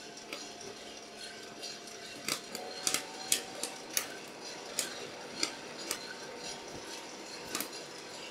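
Coffee beans popping in a Hottop KN-8828B-2K+ drum roaster at first crack: about a dozen irregular sharp cracks, like popcorn, coming thickest two to four seconds in. Under them runs the roaster's steady hum.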